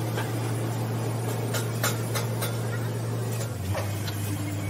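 A steady low hum, which drops slightly in pitch about three and a half seconds in, with several light clicks and taps from handling a bulb hydrometer and a metal can of battery liquid.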